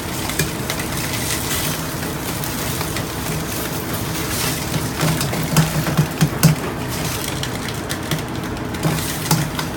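Food sizzling in a hot wok, a steady frying hiss, with a few sharp knocks and scrapes of the spatula on the wok, clustered about six seconds in.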